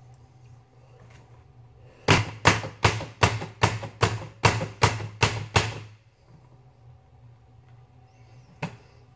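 A rapid series of about ten sharp knocks, evenly spaced at nearly three a second, that stops after about four seconds, followed by one lone click near the end, over a low steady hum.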